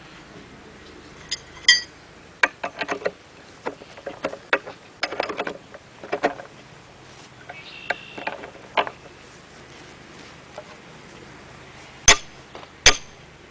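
Steel leveling lifts being handled and fitted under a sawmill's corner: scattered metallic clanks and rattles, a ringing clink about two seconds in, and two sharp metal strikes near the end.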